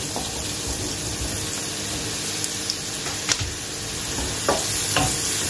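Sliced button mushrooms sizzling in hot oil in a frying pan with sautéed shallots and garlic, stirred with a wooden spoon. A steady hiss with a few light knocks in the second half.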